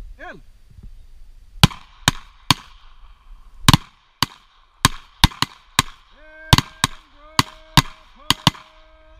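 Handgun shots, revolver fire at steel field targets: about fifteen sharp reports in quick, uneven succession over roughly seven seconds. A steady tone is held under the shots near the end.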